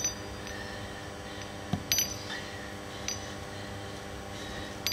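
Hand-pump lever of an Enerpred RTA-50 hydraulic rope cutter being worked through idle strokes, a sharp metallic clink about every one and a half seconds. The strokes purge air from the cutter's hydraulic system.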